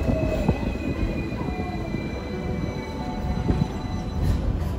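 Hong Kong double-decker tram running slowly on its rails, heard from on board, with its steel wheels squealing in thin high tones that fall slightly in pitch over the running noise.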